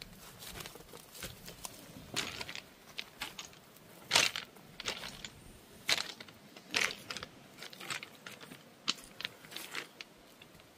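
Irregular crinkling and crunching clicks, sharp and uneven, loudest about four seconds in.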